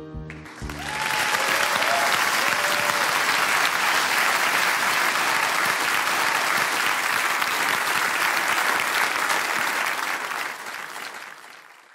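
The last piano notes die away and a studio audience breaks into steady applause, with a short cheer in the first few seconds; the applause fades out near the end.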